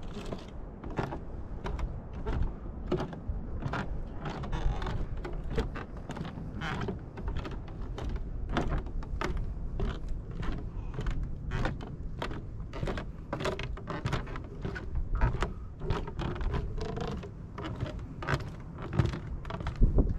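Footsteps on a wooden boardwalk, about two a second at a walking pace, the planks knocking and creaking under each step, over a steady low rumble.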